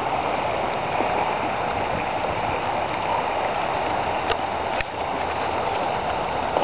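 Rain-swollen creek in flood: fast, muddy water rushing past steadily, with a couple of faint clicks about midway.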